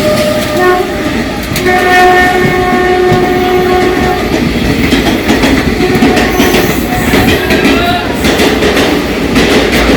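Electric trains running fast on the track with a continuous rushing and rail noise, and a train horn blowing: a held blast from about a second and a half to four and a half seconds in, with shorter blasts before and around seven seconds in.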